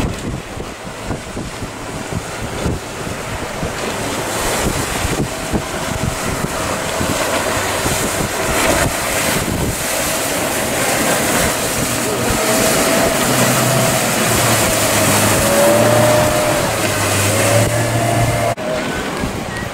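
Outboard motor of a small open motorboat running hard through rough, choppy water, its whine wavering up and down in pitch and growing louder, over a steady rush of wind on the microphone and breaking waves. The motor sound cuts off abruptly near the end.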